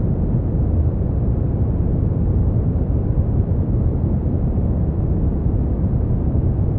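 Brown noise: a steady, even low rumbling hiss with most of its energy in the bass and little above the midrange, unchanging throughout.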